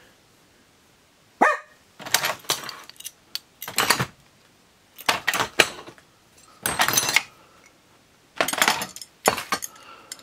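Loose metal sewing machine parts clinking and rattling in a steel drawer as they are rummaged through and picked out. The sound comes in a series of short bursts with pauses between them, and there is a brief squeak about a second and a half in.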